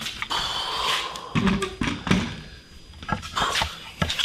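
Handling noise of a handheld camera on a flexible tripod being carried: rustling, scattered clicks and a few dull thumps.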